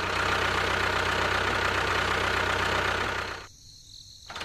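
Small DC hobby motor running steadily, with a low hum under a whirring hiss. It cuts out about three seconds in and starts again just before the end.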